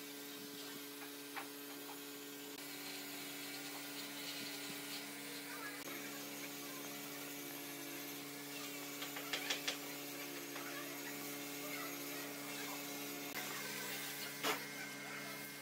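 Steady low hum over a faint hiss, with a quick run of about four light clicks about nine seconds in and a single click near the end.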